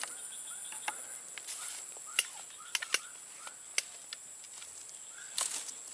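Insects droning steadily at a high pitch in swamp grassland. A few short chirps and about seven scattered sharp clicks sound over it.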